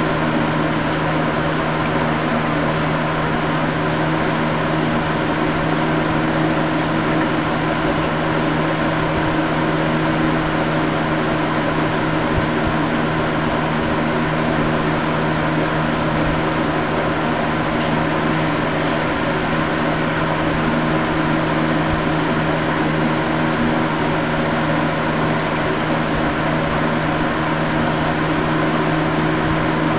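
Steady mechanical hum with a strong low tone over a constant hiss, unchanging throughout: an aquarium pump running.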